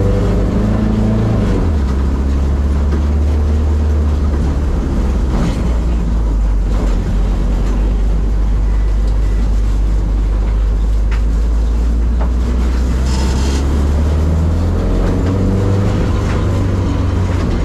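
Turbocharged Mk1 Ford Fiesta's four-cylinder engine running under way through its new full exhaust system, a steady low drone. Its pitch drops about two seconds in and rises again near the end.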